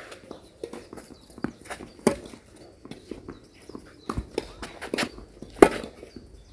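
Footsteps on a clay tennis court with scattered sharp knocks at irregular intervals, the loudest a little before the end.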